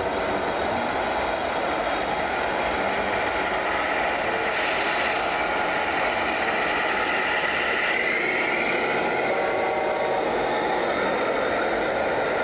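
Steady vehicle running noise with several held whining tones, one of which rises about eight seconds in.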